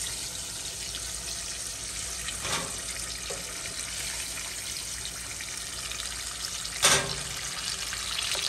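Breaded chicken tenders deep-frying in a pot of hot oil, a steady sizzling hiss. A light click comes about two and a half seconds in and a sharper, louder click near seven seconds.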